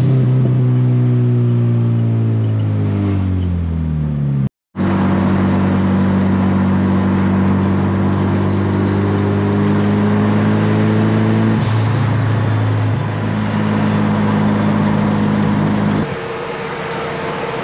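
Turbocharged Honda B20 VTEC four-cylinder in a Civic EG hatchback, heard from inside the cabin while driving. At first the engine note falls as the revs drop, then it holds a steady drone at freeway cruising speed, with small changes in pitch partway through. Near the end the sound gives way to a quieter, steady hum.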